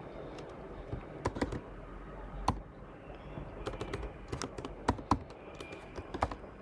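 Typing on a computer keyboard: a few separate key clicks, then a quicker run of keystrokes from about three and a half seconds in.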